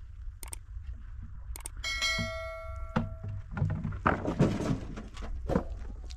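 Knocks and thumps, with a metal object struck about two seconds in and ringing for about a second and a half, over a steady low rumble.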